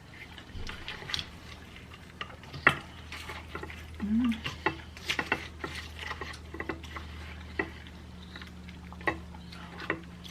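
Utensil clicking and scraping in a food container as chili is stirred and eaten, in many short, irregular strokes, with a brief hum from the eater about four seconds in.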